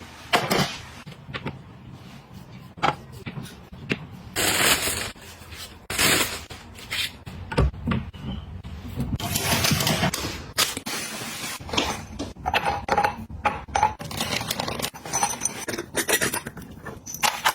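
Household items being handled, moved and set down: a busy run of clicks, knocks and scraping, broken by a few short stretches of sliding or rustling.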